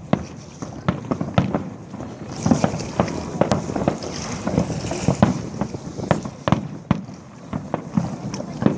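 Fireworks display: an irregular run of sharp bangs from bursting shells, several a second, with a high hiss rising between them through the middle stretch.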